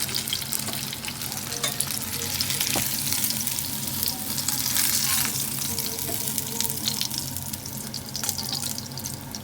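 Chicken thighs deep-frying in hot oil: a steady crackling sizzle with many sharp pops, loudest about halfway through and easing slightly near the end.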